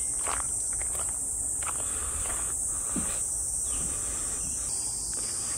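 Insects singing in a steady high-pitched chorus, with a few faint soft knocks.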